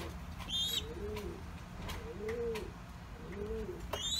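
Loft pigeons cooing: a steady run of low, repeated coos. Two short high chirps come about half a second in and near the end.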